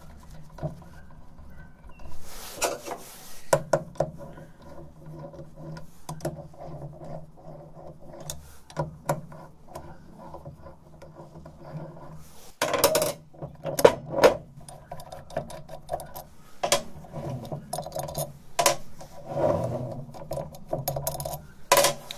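Metal parts of a lathe chuck assembly being handled: scattered clinks, knocks and scraping, with the loudest clanks a little past halfway and again near the end, over a steady low hum.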